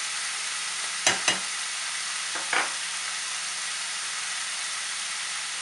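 Lamb and onions sizzling steadily in hot oil in a pan. There are two sharp knocks about a second in and a lighter one a moment later.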